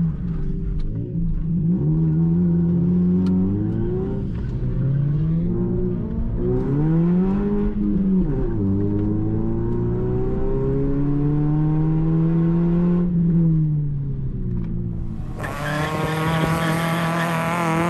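Toyota Yaris engine heard from inside the cabin, driven hard through an autocross course: its pitch climbs and drops again and again as the driver accelerates and lifts between the cones. About two seconds before the end the sound cuts to a brighter, harsher car sound from outside.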